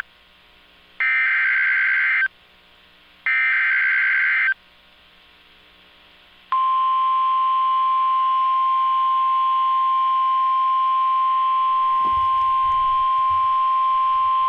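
NOAA Weather Radio Emergency Alert System tones: two short, raspy SAME header data bursts about a second apart, then, after a two-second gap, the steady single-pitch 1050 Hz weather-radio alert tone. Together they signal a severe thunderstorm warning.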